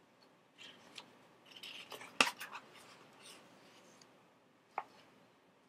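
Page of a hardcover picture book being turned: faint paper rustling and rubbing with a sharp snap of the page about two seconds in, then a single short click near the end.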